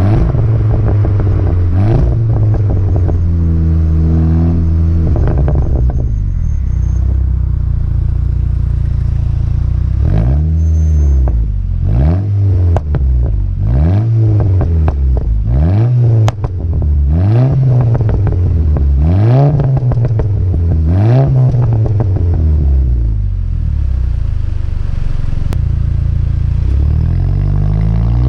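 VW Golf GTI Mk6's turbocharged 2.0-litre four-cylinder through an Akrapovic exhaust, idling, then revved in a quick series of about nine blips, roughly one every second and a half, with crackles and pops on the overrun as each rev falls, from an Integrated Engineering crackle tune. Near the end it settles, then revs hard again.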